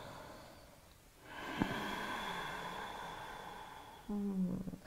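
Ujjayi yoga breathing: one long audible breath drawn through a narrowed throat, a steady hiss of about two and a half seconds with a small click early in it. A short voiced sound follows near the end.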